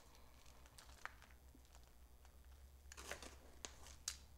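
Near silence, with a few faint crinkles and rustles of a plastic bag of cheese being handled and crumbled cheese sprinkled onto a tortilla, most of them about three to four seconds in.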